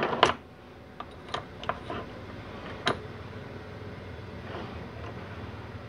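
Light metal clicks and taps from handling a 700R4 2-4 band servo pin-length gauge tool on a steel workbench, a handful of them in the first three seconds, over a steady low hum.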